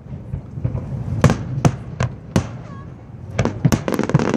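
Fireworks display: single sharp shell bursts go off about every half second, then a rapid cluster of crackling reports comes near the end, over a low background rumble.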